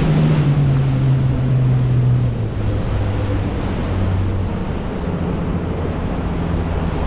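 Motorboat engine running under wind and rushing water; about two seconds in its pitch drops and it gets a little quieter as the boat throttles back.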